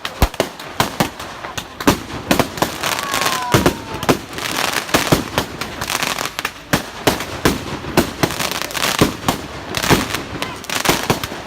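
Fireworks going off: a rapid, irregular series of sharp bangs and cracks, thickening into dense crackling about four seconds in.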